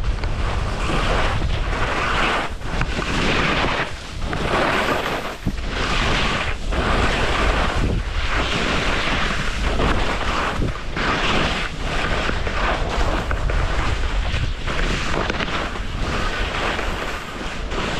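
Skis scraping and hissing over the snow in surges, roughly one per turn, with wind rumbling on the microphone.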